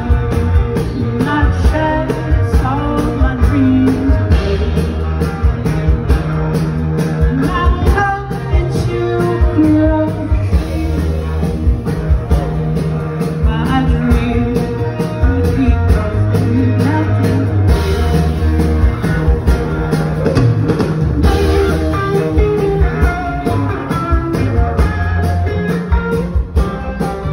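Live rock band playing loudly: electric guitar, bass and drums, with sung vocals, heard from within the audience.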